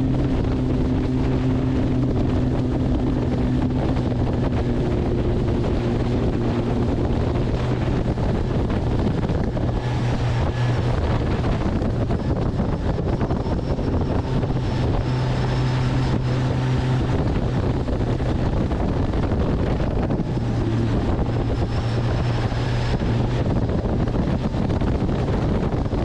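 Boat motor running steadily as the boat heads into strong wind, with heavy wind buffeting the microphone.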